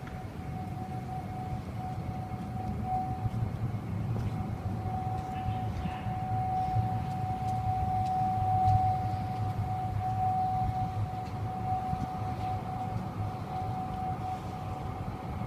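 A single steady, unwavering tone over a low rumble: the eerie, echoing noise in the sky that the recorder has been hearing on and off for months, its source unknown.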